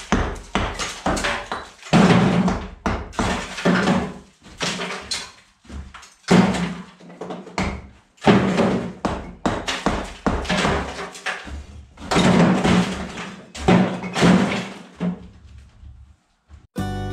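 Repeated hammer blows knocking through old masonry, two or three strikes a second in runs with short pauses, each strike with a low ring. Guitar music comes in right at the end.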